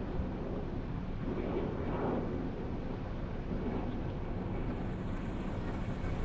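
Low, steady engine rumble that swells briefly about two seconds in.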